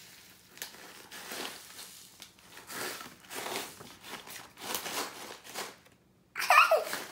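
Plastic snack pouch crinkling as it is handled and shaken, in a run of short rustles. Near the end, a short, loud child's squeal that falls in pitch.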